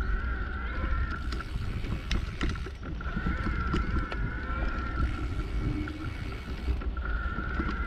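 Mountain bike rolling over a rough dirt trail: tyres rumbling and the bike rattling and knocking over bumps, with wind buffeting the microphone. A steady high buzz comes and goes a few times.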